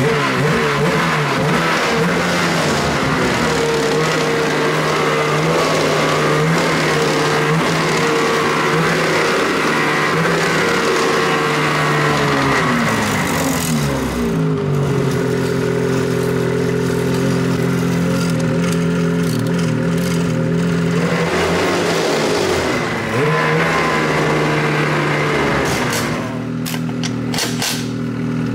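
Ski-Doo Freeride's 850 E-TEC Turbo R two-stroke twin running at a steady idle; its pitch sags about halfway through and picks up again later. A few sharp clicks come near the end.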